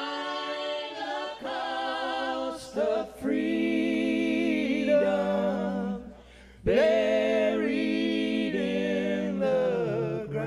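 Several voices singing long held notes in harmony, largely unaccompanied, with short breaks between phrases and a clear pause about six seconds in.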